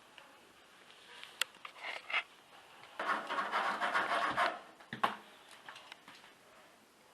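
Handling noises from work on a refrigerator: a few light clicks and knocks, then a rough scraping rub lasting about a second and a half, ending in a sharp knock.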